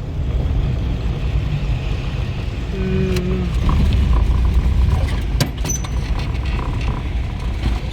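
Volkswagen Kombi van driving, with a steady low engine and road rumble heard from inside the cabin. There is a short hum about three seconds in and a few light clicks later.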